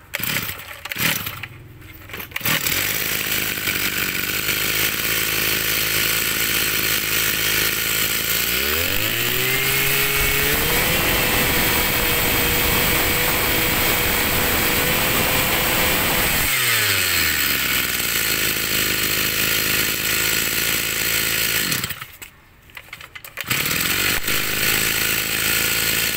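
Kioritz 260 brush cutter's two-stroke engine pull-started; it catches after a couple of seconds and idles. It is revved up and held at high speed for about six seconds, then drops back to idle. Near the end the sound cuts out for about a second and a half before the engine is running again.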